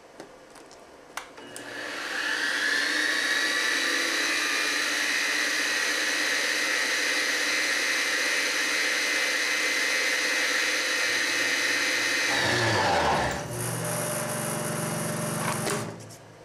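Grizzly G0704 mill's 1 hp DC spindle motor starting up with a rising whine and then running steadily at about 2,100 RPM. Near the end the whine falls in pitch, and a hiss with a low buzz goes on for about two seconds before it stops.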